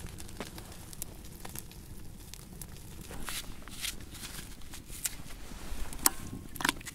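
Scattered crackles, rustles and clicks of hands at work over a steady low rumble, growing busier after about three seconds, with the sharpest click about six seconds in.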